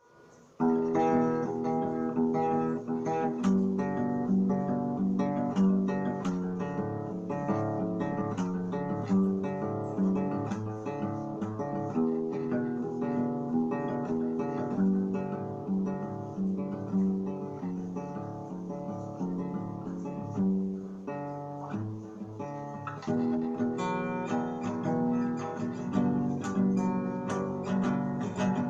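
Acoustic guitar playing a piece of music, strummed and plucked chords, starting about half a second in.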